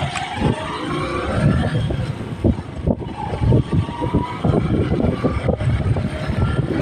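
Motorcycle engine running while riding, its pitch rising over the first second or so as the bike picks up speed. Irregular wind buffeting on the microphone runs underneath.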